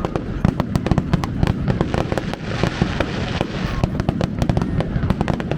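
Fireworks display going off: a dense run of rapid crackling pops over a continuous low rumble of bursts.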